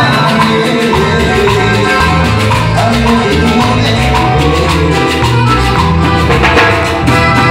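A live band playing Latin dance music, with a prominent stepping bass line under a steady percussion beat.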